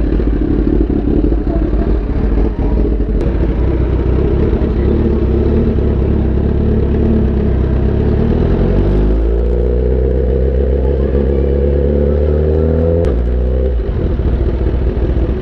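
A 1000cc inline-four superbike engine idling while it warms up. About nine seconds in the revs climb gradually and hold for around four seconds, then fall back to idle.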